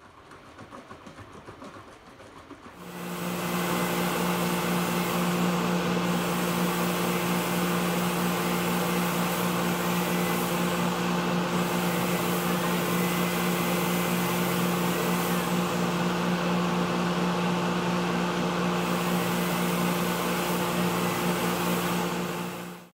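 Paint-spraying equipment running: a steady motor hum with an even hiss of air, starting about three seconds in and holding unchanged.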